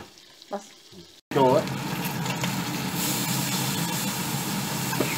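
Marinated sardines shallow-frying in hot oil in a pan: a steady sizzle that cuts in abruptly about a second in and holds even after that.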